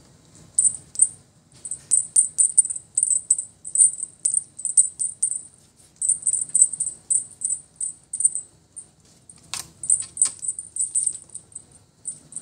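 A small jingle bell jingles in quick, irregular shakes, several a second, during play with a feather toy. Two sharper knocks come near the end.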